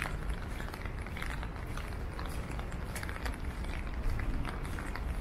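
Footsteps walking at an even pace, about two steps a second, over a steady low city rumble.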